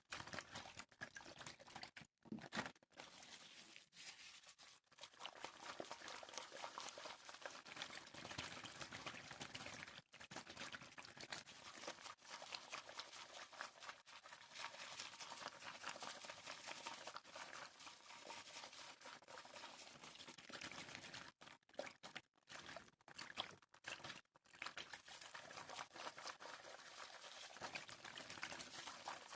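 Close-miked water sounds: liquid pouring and trickling in a dense, crackly wash, broken by several short pauses.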